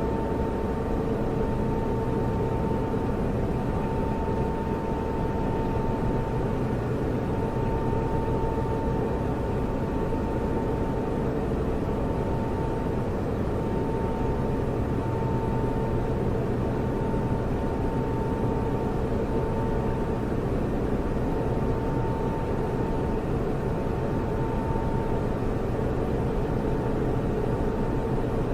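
Computer server running steadily: cooling fans whirring in a constant rush, with a steady hum carrying two held tones, the higher one wavering slightly in strength.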